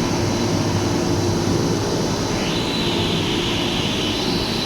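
Cable-making machinery in a factory running steadily: a constant mechanical drone with a steady tone through it. A higher hiss joins about halfway through.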